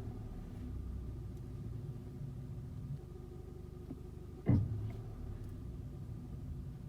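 Kia K5 (DL3) cabin with a steady low hum from the running car, and about four and a half seconds in a single short, loud, low 'kkeuk' clunk: the odd noise on pulling away from Auto Hold, which the owner wonders is normal or a fault.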